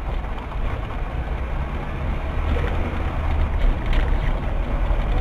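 Steady low rumble of a car's engine and tyres while driving.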